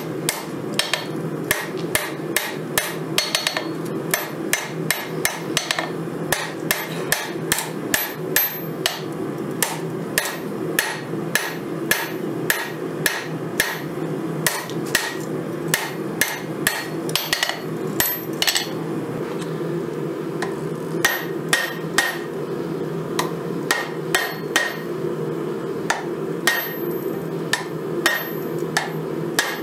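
Forging hammer striking red-hot 5160 steel on an anvil: a run of sharp metallic blows, about two to three a second, with a short pause a little past the middle, over a steady low drone.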